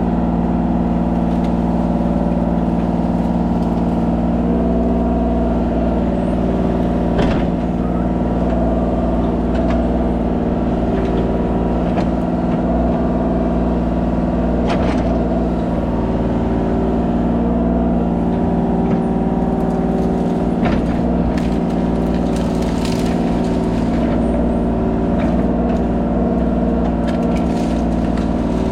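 Kubota 33 mini excavator's diesel engine running steadily under working load, with a few sharp knocks from the machine at work scattered through.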